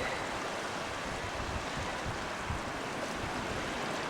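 Steady hiss of surf breaking on a beach, with wind gusting on the microphone.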